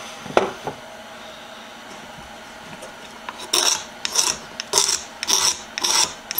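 Clear polyurethane finish being scraped by hand off a small wooden cylinder case: a single knock about half a second in, then, from about halfway through, a regular run of short rasping strokes, a little under two a second.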